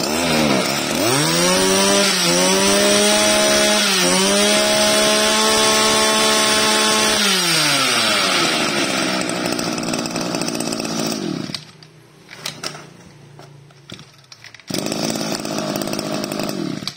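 Kioritz SRM2350G brush cutter's small two-stroke engine, revved by hand at the carburettor. It dips, climbs to a steady high speed, then falls back to idle. About eleven seconds in it cuts out, leaving a few clicks, and runs again shortly before the end.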